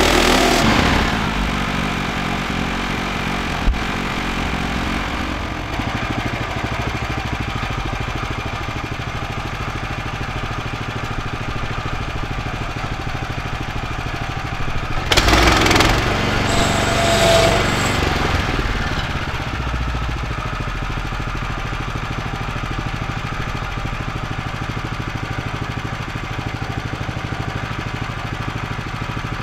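Bandsaw mill's small petrol engine dropping off about a second in and then running steadily at idle. A brief loud rush of noise comes about halfway through, with a smaller one just after.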